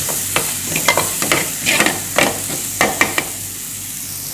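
Metal ladle scraping and clinking against a steel frying pan, stirring chopped garlic that sizzles steadily in hot oil. The scraping strokes stop a little after three seconds in, leaving only the sizzle.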